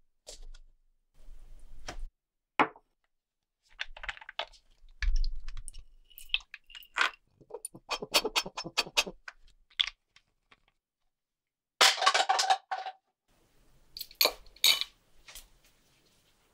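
Small metal watch parts and tools clicking, clinking and scraping in a string of short, separate bursts.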